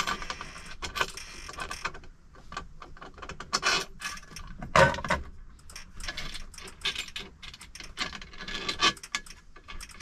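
Irregular clicks, taps and small metal rattles of hands working a throttle lock and its cable into place under a semi truck's dash, with the sharpest knock about five seconds in.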